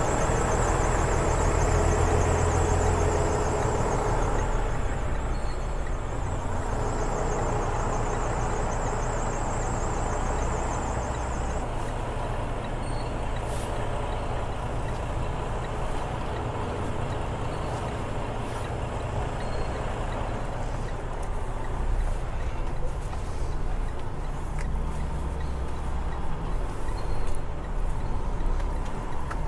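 Freightliner Cascadia semi-truck's diesel engine running steadily at low revs. A faint, pulsing high whine stops about twelve seconds in.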